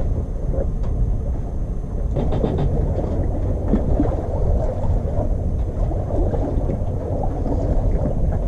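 Wind buffeting the microphone over water washing along a sailboat's hull as it moves under way, a steady low rumble with a few faint knocks.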